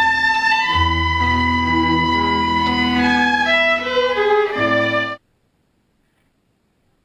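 Cello being bowed, playing long sustained notes, low and high, that stop abruptly a little after five seconds in; then near silence.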